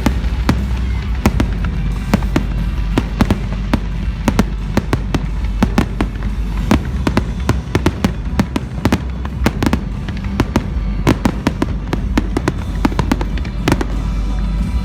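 Fireworks going off in rapid, irregular succession: many sharp cracks and pops, several a second, over a steady low rumble.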